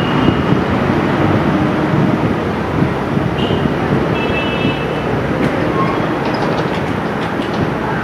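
Indian Railways WDP4 diesel locomotive approaching, its EMD two-stroke V16 engine running with a steady low rumble.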